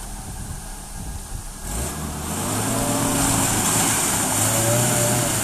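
Off-road vehicle's engine running, growing louder about two seconds in and then holding a steady note under load.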